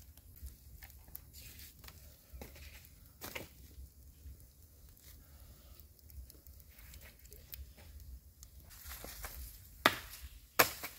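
Faint crackling and rustling of dry leaves and twigs, then two sharp knocks near the end, less than a second apart.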